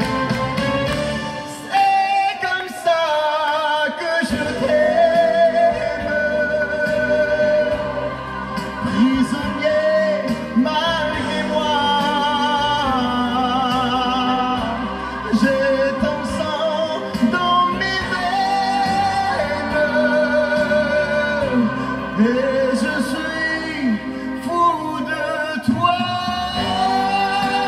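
Live male vocal sung into a microphone over a backing track played from a deck: long held notes with vibrato and gliding runs.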